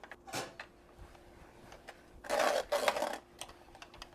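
Stainless steel food mill being worked over a bowl: a short scrape, then a longer, louder rasping stretch about two seconds in, as the spatula and the mill's blade scrape the last mashed potato against the metal.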